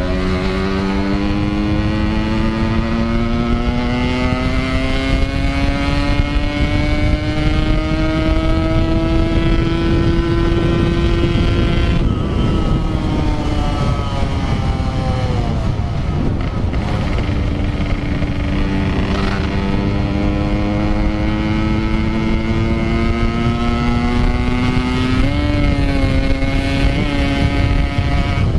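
Yamaha RX-King two-stroke single-cylinder engine pulling hard, its revs climbing slowly for about eleven seconds, dropping away, then climbing again with a short blip near the end. The rider says the clutch is slipping badly. Wind rushes over the helmet-camera microphone.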